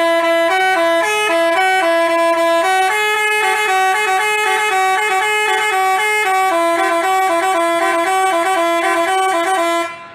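Basuri-type telolet bus horn playing a tune: a quick run of steady, held horn notes stepping up and down in pitch, cutting off suddenly near the end.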